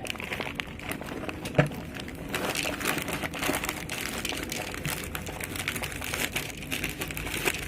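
Continuous crinkling and crackling during cat feeding, with one sharper knock about a second and a half in.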